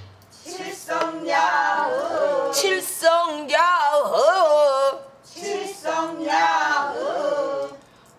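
A woman singing pansori solo in phrases, her pitch bending and wavering widely on a held note around the middle, with a short break about five seconds in.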